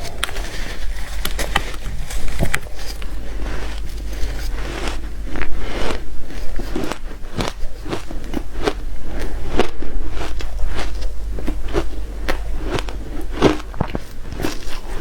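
Hard ice being bitten and chewed: a rapid, irregular run of crisp crunches and cracks between the teeth.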